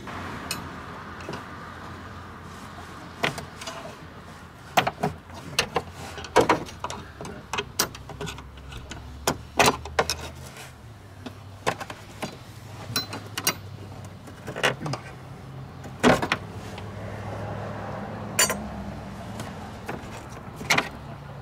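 Irregular metallic clicks, taps and clunks of a flathead screwdriver prying the wiper linkage arms off the ball studs of a car's windshield wiper transmission, over a steady low hum.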